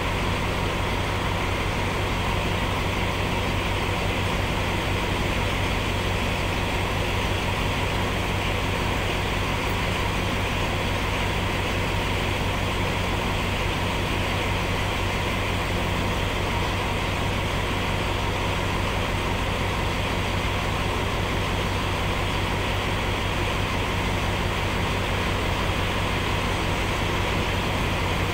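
Steady engine hum of a diesel-hauled commuter train standing with its engine idling, unchanging throughout, with no wheel or rail noise.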